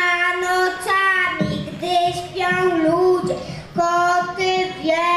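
Young children singing a song in Polish, holding long notes that change about once a second.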